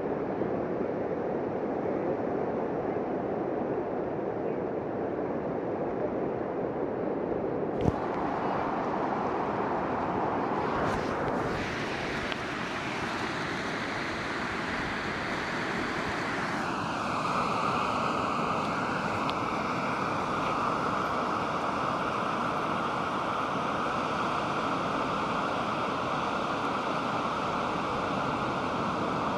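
Pacific Ocean surf washing steadily onto the beach, a continuous rush of breaking waves. A single sharp click cuts through about eight seconds in.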